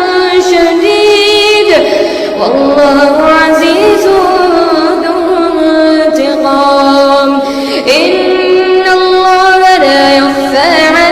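Music: a song with a woman's voice singing a slow melody of long held notes that slide from one pitch to the next.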